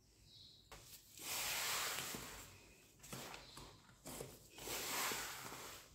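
Wooden spoon stirring dry flour into a stiff, crumbly dough in a bowl, with a rasping, scraping sound in three spells.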